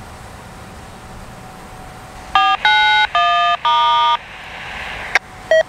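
Handheld scanner radio tuned to railroad traffic sounding four quick electronic tones over about two seconds, each a chord of several steady pitches. Then comes a short burst of static hiss, a sharp click and one short beep.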